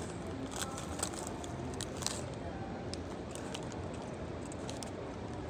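Steady background hubbub of a public hall, with faint distant voices and scattered light clicks and clinks.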